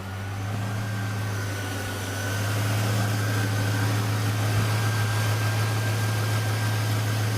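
Chevy Tahoe V8 idling steadily with a K&N cold air intake fitted: a low steady hum with a faint steady whine above it. It grows louder over the first couple of seconds, then holds level.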